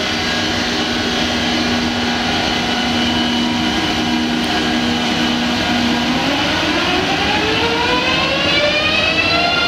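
Electric train's traction drive whining over rolling noise: a steady hum, then from about six seconds in a whine with several pitches climbing together as the train accelerates, levelling off near the end.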